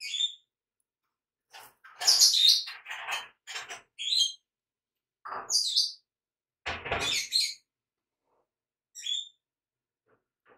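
A bird chirping on and off in short calls, mixed with light scratching and rustling from pencil and paper being handled. A single dull knock comes about 7 seconds in.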